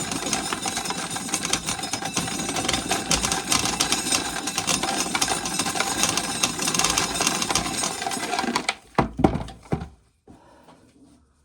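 Dry corn kernels being shelled off the cob and rattling steadily into a plastic container. The rattle stops near the end, followed by a couple of sharp knocks.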